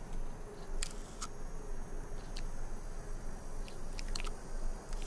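Desert tortoise biting and chewing a prickly pear cactus pad: irregular crisp crunches, bunched into a quick run of several bites near the end.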